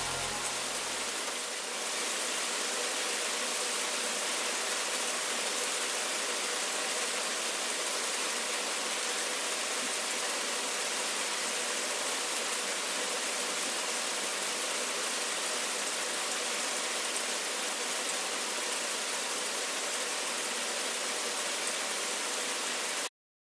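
Steady rain falling, an even hiss that cuts off abruptly near the end.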